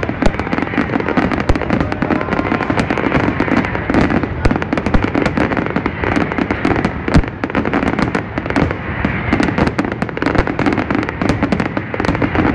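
Aerial fireworks display at full intensity: a continuous barrage of shell bursts and crackling, with sharp bangs coming several times a second and no break.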